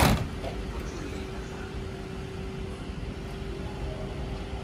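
A short, loud burst of noise at the very start, then the steady hum of a stopped JR East E217-series electric train standing at the platform, with a faint held tone running under it.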